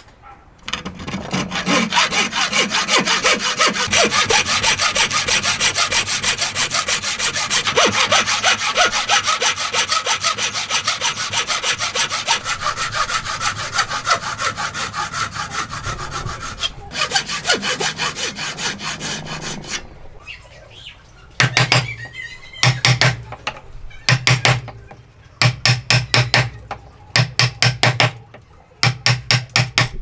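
Wooden frame saw ripping down into the end of an upright hardwood board, steady back-and-forth strokes. The sawing runs without a break for about seventeen seconds and goes on more quietly for a few more, then comes in short bursts of strokes through the second half.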